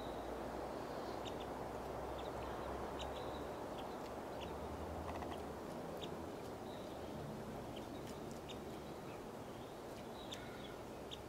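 Pygmy nuthatches giving many short, high chirps, scattered irregularly, over a steady background hiss.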